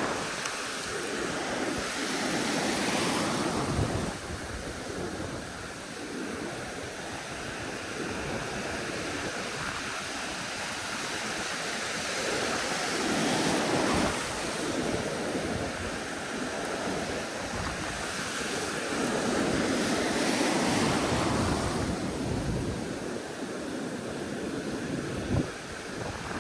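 Pacific Ocean surf washing in around a wader's legs: a steady rushing of breaking waves that swells louder several times and falls back.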